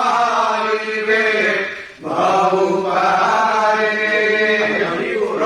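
A man's voice chanting verses from a book into a microphone, in two long, drawn-out phrases with a short break about two seconds in.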